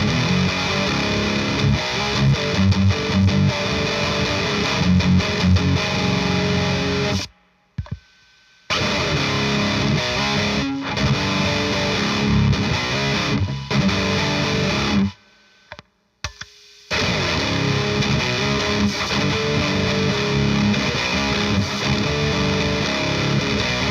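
Electric guitar played through a Klon-style overdrive pedal into a PRS Sonzera tube amp, a lightly driven tone. The playing stops abruptly for a second or so about seven seconds in and again about fifteen seconds in.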